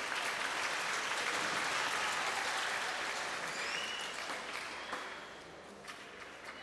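Spectators applauding in a table tennis hall after a point is won, swelling and then fading out about five seconds in.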